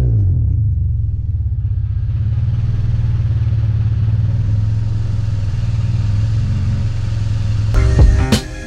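Acura TSX's 2.4-litre four-cylinder through a Skunk2 cat-back exhaust, recorded close at the tailpipe: the revs fall back from a blip at the start and the engine then idles with a steady low rumble. Music cuts in near the end.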